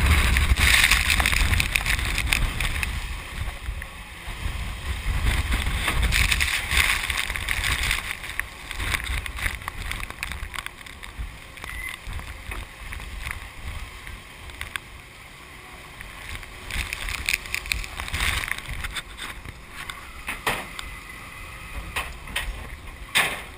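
Wind buffeting the microphone and rough sea washing along a fishing boat's hull, loudest for the first several seconds and then easing. Near the end come a few sharp knocks and rattles as a steel-mesh cod pot is brought aboard.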